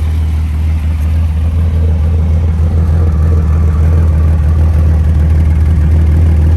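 TVR Tamora's 3.6-litre Speed Six straight-six running at a steady idle. It is not yet fully warm, so it ticks over at around 750 to 800 rpm, a little below where it should.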